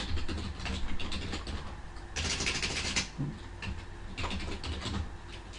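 Typing on a computer keyboard: a run of quick keystroke clicks, with a denser, louder flurry of keys for about a second, some two seconds in.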